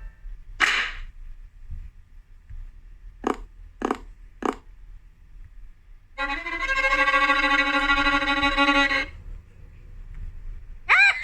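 A run of cartoon sound effects: a short whoosh, then three quick knocks about half a second apart, then a held string-like note for about three seconds, and near the end a warbling squeal that bends up and down in pitch.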